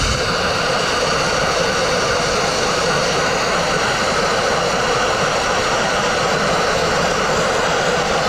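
Dustless wet-abrasive blaster spraying crushed-glass media through its nozzle onto a brick wall, a steady, loud hiss of air, water and grit stripping cement-backed paint.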